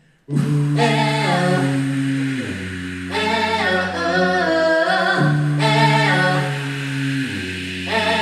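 A cappella vocal group singing in close harmony with no instruments: held chords over a bass voice that steps down twice, with higher voices moving above. The singing starts just after the start.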